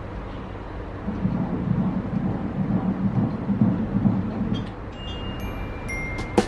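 Fetal heartbeat on an ultrasound machine's Doppler audio: a low, rhythmic whooshing pulse at about two and a half beats a second, from about a second in until it stops around four and a half seconds. A few short high tones follow near the end.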